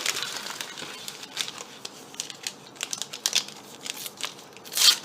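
Wrapper of a Panini Adrenalyn trading-card pack being torn open and handled, crinkling irregularly, with a louder crackle near the end.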